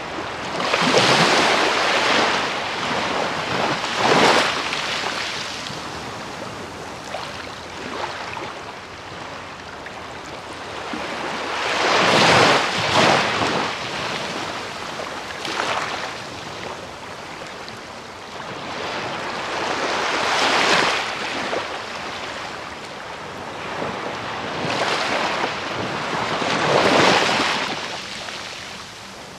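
Sea waves breaking on a beach: the hiss of surf swelling and fading every several seconds, over a steady wash of water.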